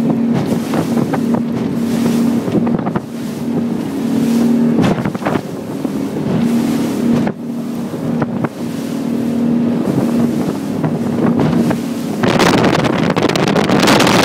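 Twin Suzuki outboard motors running steadily at high revs under full throttle, a droning hum under rushing wind and water. Near the end, wind blasting across the microphone covers the engines.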